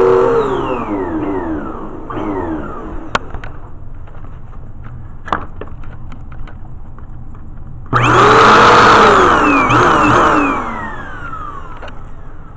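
Vacuum cleaner motor switched off, its whine falling in pitch as it winds down. After a few clicks it is switched on again about eight seconds in, runs loud for a couple of seconds, then is switched off and winds down again.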